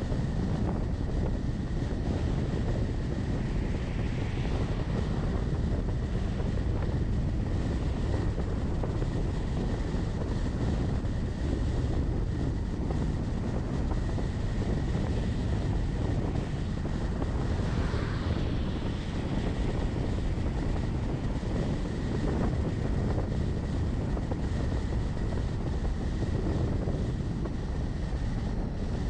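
Steady low rumble of a vehicle driving at road speed, heard from the vehicle itself: engine and tyre noise on a wet road, with some wind noise and a faint steady high whine.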